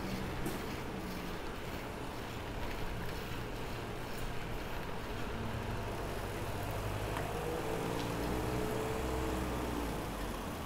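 A motor vehicle's engine running, a low steady rumble, with a faint pitched hum over it in the later seconds.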